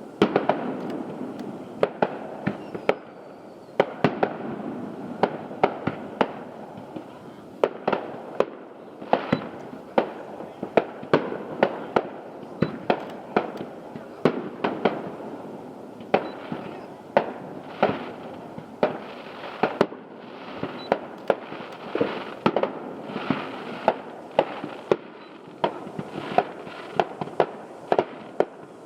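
Fireworks show: aerial shells bursting in a rapid, unbroken string of sharp bangs, often more than one a second, with steady noise between the bursts.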